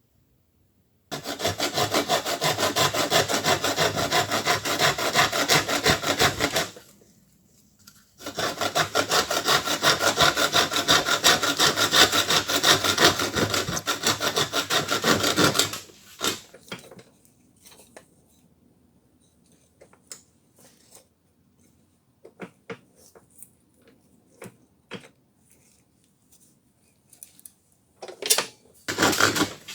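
Fast back-and-forth scraping strokes of a hand tool, like sawing or filing, working on an old dengle hammer in two long runs with a short pause between. Then come scattered light clicks and knocks of handling, with a louder cluster near the end.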